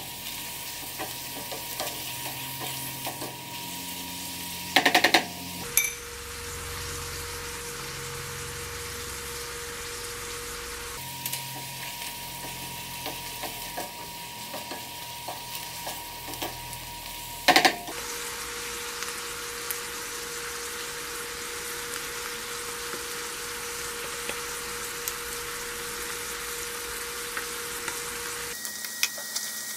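Ground beef and chopped onion sizzling in a frying pan while a wooden spoon stirs and scrapes through it, with small clicks of the spoon against the pan. Twice, about five seconds in and again near eighteen seconds, a short burst of loud sharp knocks stands out.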